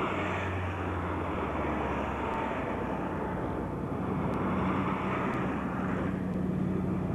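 Steady low engine rumble with a constant low hum and no distinct events.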